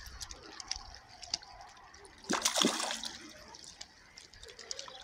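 A short water splash about two and a half seconds in, as a fish is let go into the shallows at the river's edge, with small drips and trickles around it.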